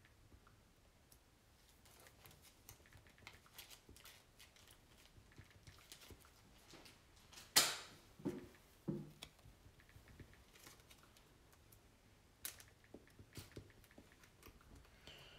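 Computer keyboard being typed on in scattered runs of soft clicks, with one sharper click about halfway through followed by two dull knocks.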